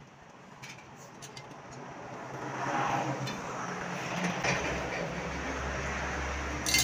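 A few light metallic clicks from hand tools working the spokes of a bicycle wheel in a truing stand, with one sharper click near the end. Under them a low rumble swells about two seconds in and then holds steady.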